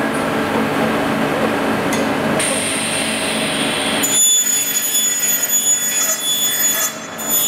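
Machinery of an aluminium profile production line running, a steady low hum at first; from about four seconds in, high, thin metallic whining tones ride over it.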